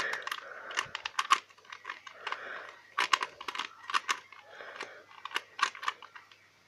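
Rubik's cube being scrambled by hand: quick plastic clicks and rasping as its layers are turned, in irregular bursts of several turns.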